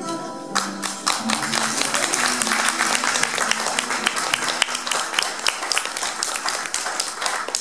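Audience applause breaking out about half a second in, as the final note of the song fades.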